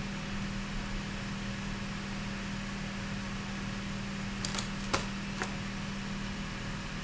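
Cooling fans of a running dual Athlon MP computer, a steady hum with a low tone over a hiss. A few short, sharp clicks sound about four and a half to five and a half seconds in.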